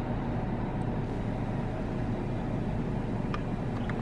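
Steady road and engine rumble inside a moving car, with two faint clicks about three and a half seconds in.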